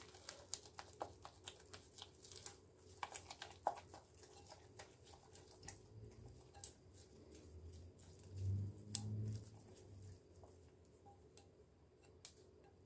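Silicone spatula stirring and scraping a thick flour-and-water sourdough starter in a bowl: faint, scattered clicks and soft taps that thin out after about ten seconds. A brief low sound stands out about eight and a half seconds in.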